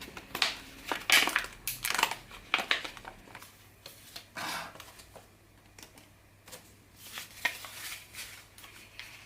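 Paper and plastic crinkling and tearing in irregular rustles as a roll of sticky labels is handled and labels are pulled off.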